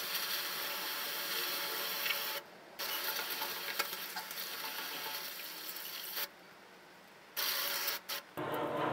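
Garden hose spraying water onto a motorcycle chain to rinse off loosened grime, a steady hissing spray that stops briefly twice.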